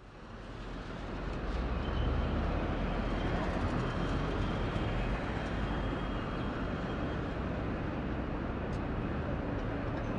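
Steady rumbling noise that fades in over about two seconds and then holds.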